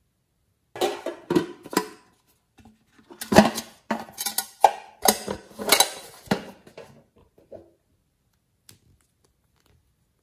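Hard plastic objects clicking and clattering as they are handled: three sharp knocks about a second in, then a denser run of clicks and knocks over the next few seconds, with one faint tap near the end.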